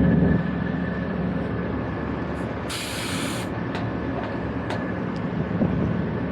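A short hiss of refrigerant released from a gauge hose as it is purged, about three seconds in, over a steady machinery hum, with a few small clicks from the fittings.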